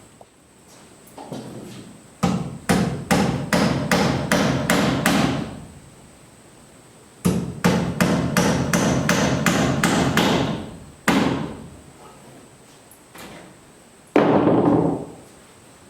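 Hammer blows in two quick runs of about three strikes a second, each lasting about three seconds, then a single blow and one more near the end.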